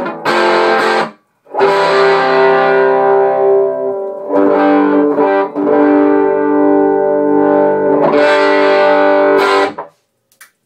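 Electric Les Paul-style guitar played through a Swart Space Tone Reverb amp running a 1940s Ken-Rad 6V6GT power tube into a JBL D120F speaker. Chords are strummed and left to ring, with a brief break about a second in, and the playing stops near the end.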